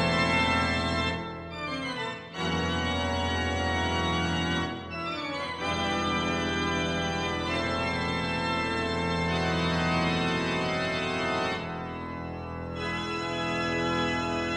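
Background music: slow, held chords on an organ-like keyboard, changing every few seconds.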